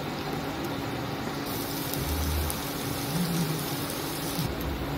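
Chopped garlic, ginger and green chilli sizzling in a little hot oil in a nonstick kadai, a steady hiss that brightens for a few seconds in the middle. A steady low hum runs underneath.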